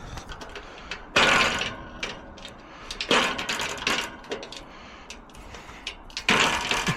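Small metal clicks from an Adams Rite lock mechanism being turned and handled, broken by three harsh rasping bursts of under a second each, about one, three and six seconds in.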